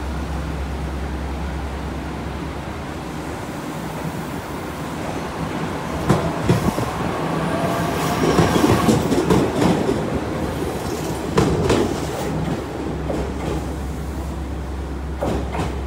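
JR Kyushu 817 series electric train running close past along the platform. Its wheels clack over the rail joints in clusters, loudest in the middle, with a faint squeal of wheels on rail.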